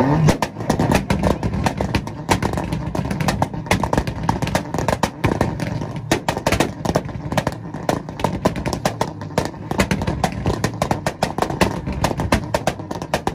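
A tuned car engine held on a two-step launch rev limiter, the exhaust popping and banging rapidly and irregularly, many cracks a second without a break.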